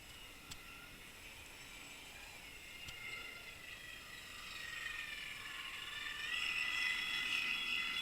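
Underwater sound picked up by a camera on a fishing line: a steady whine of several tones that shift in pitch and swell louder about six seconds in, with a couple of sharp clicks early on.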